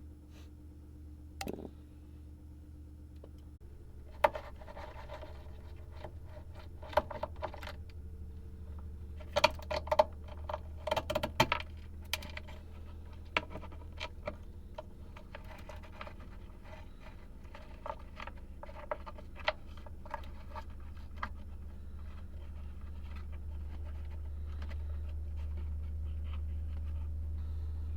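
Small metal parts or tools clinking and clattering as they are handled, in scattered groups of sharp clicks, busiest in the first half, over a steady low hum that grows louder near the end.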